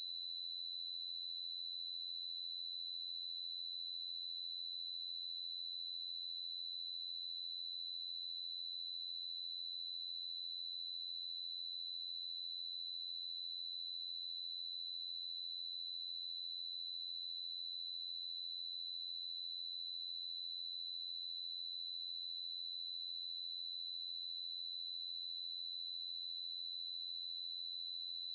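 A steady pure sine-wave test tone at 3957 Hz, a single high-pitched whistle-like note held at constant pitch and level without a break.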